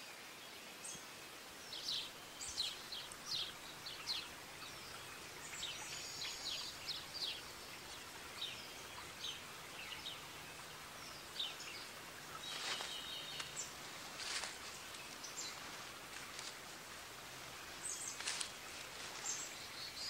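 Forest ambience: many short bird chirps and calls scattered throughout, over a steady faint hiss.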